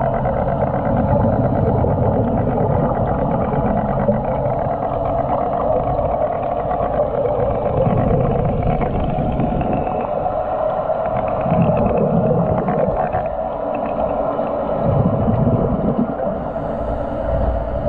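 Muffled underwater sound heard through a submerged camera: a steady rumbling hum, with gurgling surges of scuba divers' exhaled regulator bubbles swelling several times.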